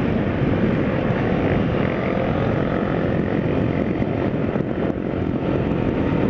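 Yamaha XJ6 motorcycle cruising at about 70 km/h on a steady throttle. Its engine drone is mixed with a continuous rush of wind on the bike-mounted microphone.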